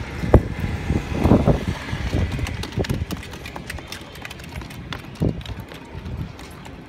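Wind buffeting an outdoor phone microphone, with a rumble and many short knocks. The knocks are strongest in the first couple of seconds and settle after about three seconds. A faint jet airliner on final approach may lie underneath.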